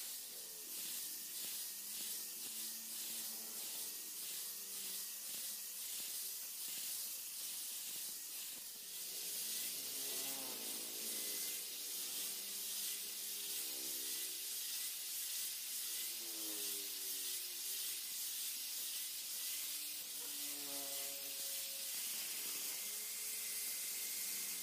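Electric angle grinder with an abrasive disc running against a steel machete blade, a steady high hiss of grinding with a thin motor whine under it.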